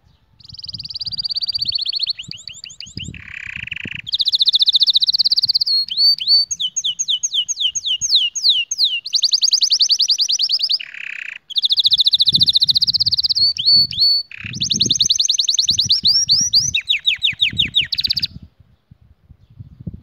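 Domestic canary singing one long song of fast trills, run after run of rapidly repeated notes, twice dropping into a lower passage; the song breaks off about two seconds before the end.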